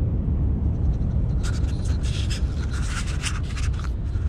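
A deep, steady rumble that slowly fades. From about a second and a half in, a couple of seconds of crisp scratching and rustling sound close to the microphone as the camera is handled and moved.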